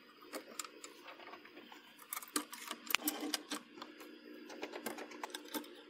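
Screwdriver turning the action screws of a Krag 1898 rifle to take off the stock, with irregular small metallic clicks and taps as the screws turn and the rifle is handled. A faint steady hum runs underneath.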